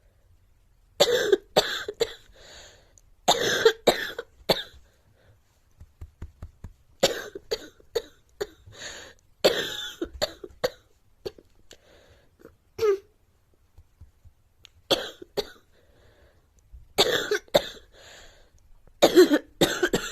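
A girl coughing in repeated short fits of two to four coughs each, with a pause of a second or two between fits.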